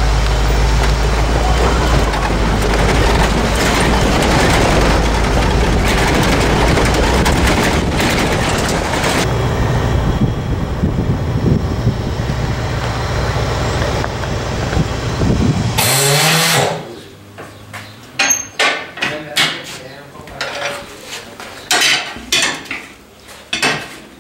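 Steady engine drone and tyre and gravel noise heard inside an SUV as it drives slowly over a rough, rocky dirt road. It cuts off abruptly, and then comes scattered knocking and clatter of tyre-shop work at a tyre-changing machine.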